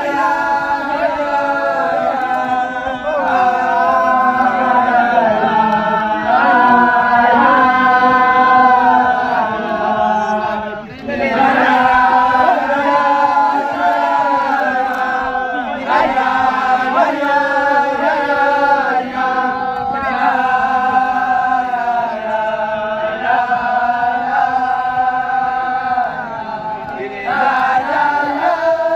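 A crowd of men singing a melody together in unison, loud and continuous, with a brief break about eleven seconds in.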